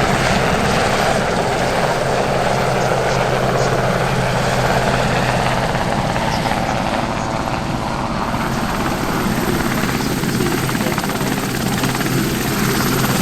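Westland Sea King HAR.3 helicopter running, a loud, steady sound of rotor and turbine engines.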